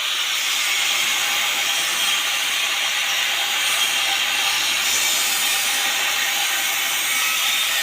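Gas cutting torch hissing steadily as it cuts through metal.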